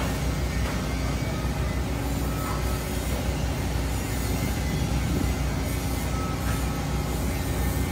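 Steady low rumble of heavy machinery, with a constant hum that holds the same pitch throughout.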